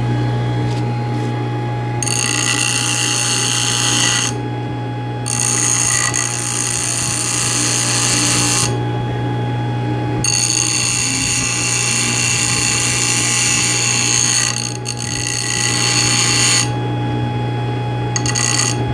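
A homemade sander driven by a sewing machine motor runs with a steady hum. Three long stretches of rasping sanding noise come as work is pressed to the abrasive: the first about two seconds in, then from about five seconds, then from about ten seconds to near the end.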